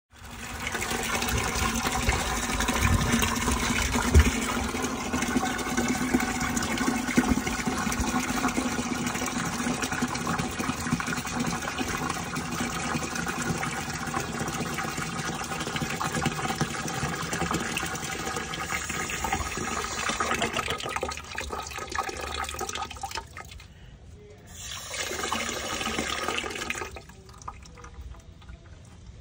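Water running into a plastic measuring bucket, filling it to a measured level for mixing self-levelling compound. The flow stops about 23 seconds in, then runs again briefly for a top-up a couple of seconds later.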